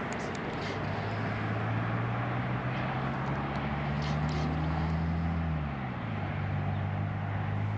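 A motor vehicle's engine humming steadily over a broad background noise, its pitch dropping a little about six seconds in.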